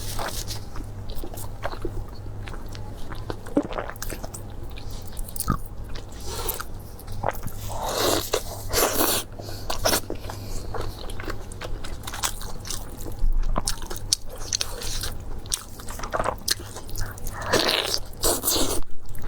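A person biting and chewing food, with repeated crunches and clicks; louder stretches of crunching come around the middle and near the end.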